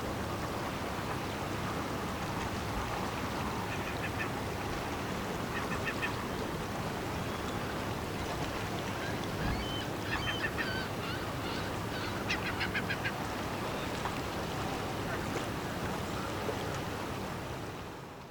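Waterbirds calling in several short runs of rapid, duck-like quacking calls over a steady low rumble and hiss; the sound fades out at the very end.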